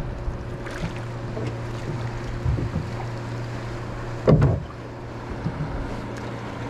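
Outboard motor running with a steady low hum, and one loud thump about four seconds in.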